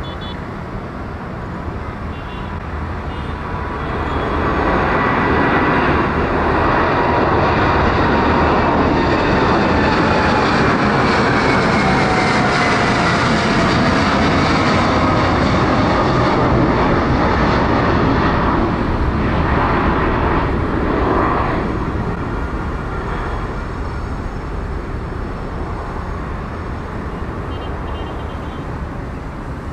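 Boeing 787-9's twin jet engines at takeoff power as the airliner lifts off and climbs away. The engine noise swells a few seconds in, holds loud with a whine that falls in pitch, then fades after about twenty seconds.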